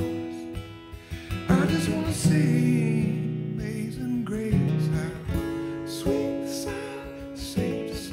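Acoustic guitar strummed and picked through a slow worship song, with a voice coming in about a second and a half in, singing a slow, held melody over the chords.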